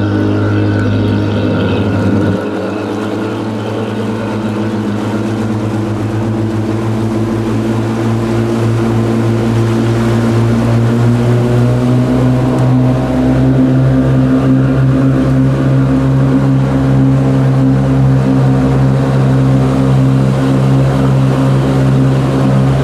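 Boat motor on a river float boat running steadily. It drops back a couple of seconds in, then slowly rises in pitch and grows louder as it speeds up.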